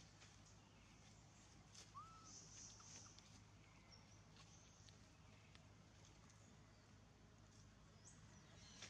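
Near silence: faint outdoor background with a steady low hum and a few faint, brief chirps.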